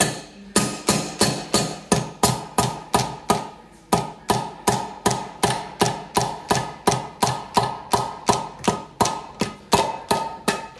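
A mallet tapping repeatedly on the cast intake manifold of a Jaguar XK engine's cylinder head, knocking it loose off its long studs. The strikes are steady, about three a second, each with a short metallic ring.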